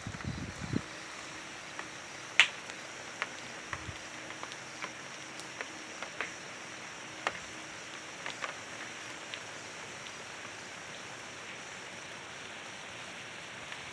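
Steady rain hiss with scattered sharp drops ticking onto a hard surface, the loudest about two and a half seconds in, and a brief low rumble right at the start.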